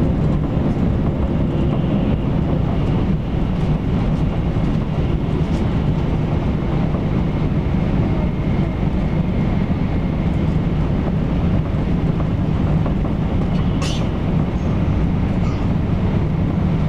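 Inside a JR East E4 series 'Max' double-decker Shinkansen running at speed: a steady low rumble, with a brief high-pitched hiss near the end.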